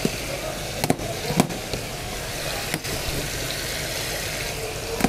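Water running steadily from a PVC pipe into a plastic colander basin, over a low steady hum. A few sharp knocks come from cardboard boxes being torn open and handled, about one second in and again near three seconds.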